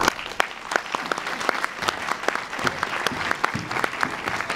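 Audience applauding, starting suddenly as the song ends, with many separate hand claps standing out.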